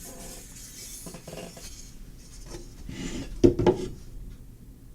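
Light clinks and knocks of hard objects being handled on a workbench, with a couple of sharp knocks about three and a half seconds in.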